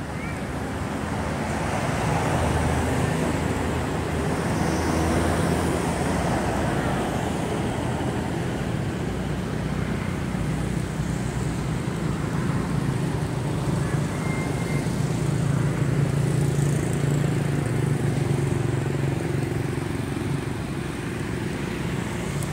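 Steady road traffic noise: motor vehicle engines running with a low hum that swells and fades slowly.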